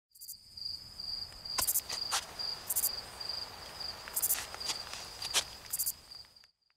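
Insects chirring, cricket-like: a steady pulsing high trill, with a higher rasping buzz repeating about every one and a half seconds and a few sharp clicks or snaps. It all cuts off shortly before the end.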